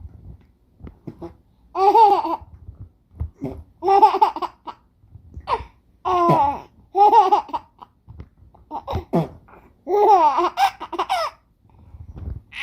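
A four-month-old baby laughing in a string of short high-pitched bursts, about one every one to two seconds, at fart sounds being made for him.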